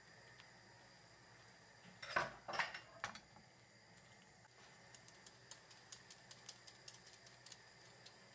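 Non-stick frying pan knocked and shifted on the stove with a short clatter about two seconds in, over a faint sizzle of beaten eggs cooking in butter on low heat. Light scattered ticks follow.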